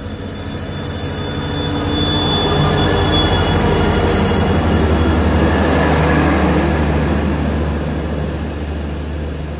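EMD diesel locomotive passing close by with a passenger train: its engine drone and wheel noise swell to a peak as it goes past, then ease into the rumble of the coaches' wheels on the rails as it moves away.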